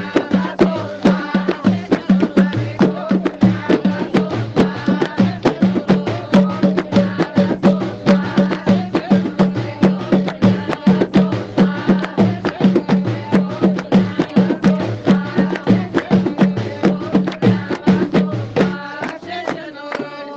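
Gnawa music: a guembri plays a repeating plucked bass line over the rapid metallic clatter of qraqeb castanets. Near the end the bass line stops and the music thins out.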